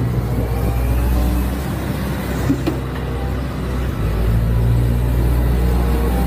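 Diesel engine of a Hyundai 170W-7A wheeled excavator running with a steady low drone that dips briefly about four seconds in and then picks up again.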